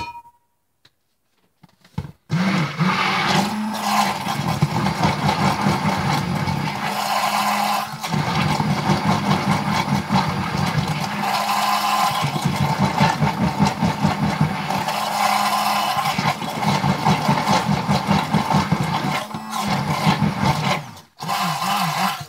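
Hand-held stick (immersion) blender running in a plastic pitcher of soap batter, mixing coconut fragrance oil into cold-process soap. It starts about two seconds in, runs with a steady hum that wavers as the blender works the batter, and cuts out for a moment near the end before starting again.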